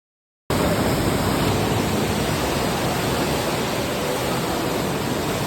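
Steady rushing noise with no tone or rhythm, which cuts in abruptly out of dead silence about half a second in.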